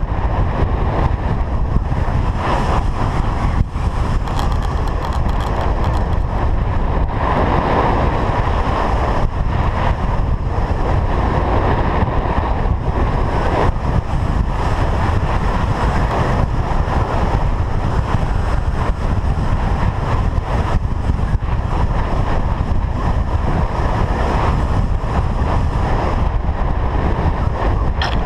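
Steady, loud rush of wind buffeting an action camera's microphone during a hang-glider flight, without a break from start to finish.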